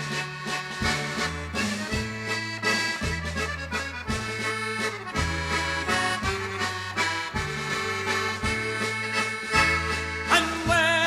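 Instrumental break of an Irish folk song: a melody over a pulsing bass line, with a voice starting to sing near the end.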